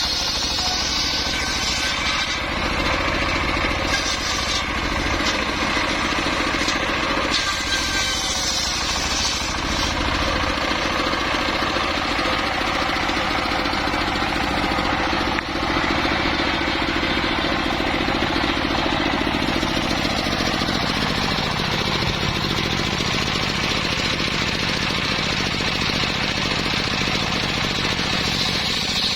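Engine-driven saw of a mobile sawmill running steadily under load, cutting timber. There is a brief dip about halfway through, and the engine note drops a little about two-thirds of the way in.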